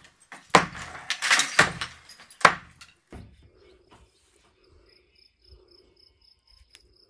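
A few sharp hammer blows on a brick wall during the first three seconds, then a faint high chirp repeating about four times a second.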